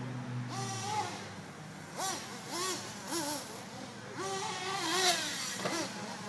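Nitro-powered RC buggy's small glow-fuel engine revving up and falling back again and again, in short bursts about every half second to a second.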